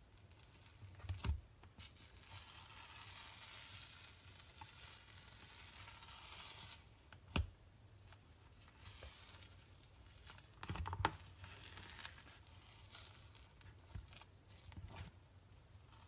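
Slime being squished and stretched by hand, with a soft crackling hiss for several seconds and a few sharp clicks or pops, the loudest about seven and eleven seconds in.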